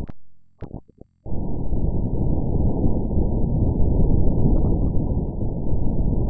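Martian wind vibrations recorded by NASA's InSight lander and sped up 100 times, heard as a low, rough rumble. It cuts out just after the start, with a couple of short blips in the gap, and returns at full strength about a second in.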